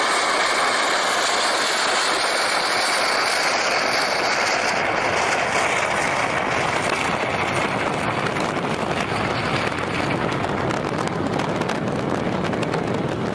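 Homemade turbojet engine on a jet-powered go-kart running flat out: a steady, loud roar with a high whine that fades about five seconds in.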